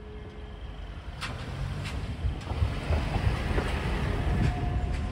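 Diesel truck driving slowly past close by, its low engine rumble growing louder as it approaches, with three sharp clicks between one and two and a half seconds in.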